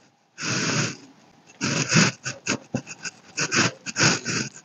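One soft breathy hiss, then a run of short, irregular rustling noises, from a makeup powder brush being worked and from breath close to the microphone.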